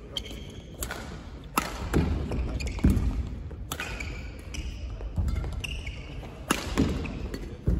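Badminton-hall court sounds: scattered sharp racket-on-shuttlecock hits and thuds of feet on a wooden floor, with brief high shoe squeaks.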